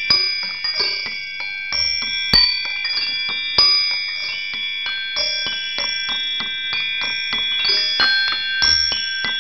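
Chimes ringing: many high bell-like tones, struck at irregular moments, overlapping and ringing on.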